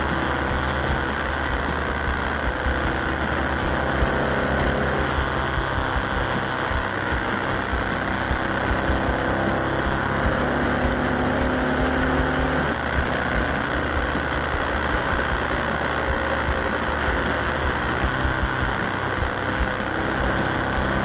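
Motorcycle engine running at road speed, heard from the bike with a steady rush of air noise over it. The engine note changes about two-thirds of the way through.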